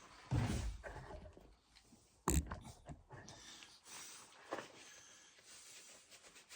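Handling noises as a chainsaw and file are set up for sharpening: soft scraping and rustling, with one sharp click a little over two seconds in.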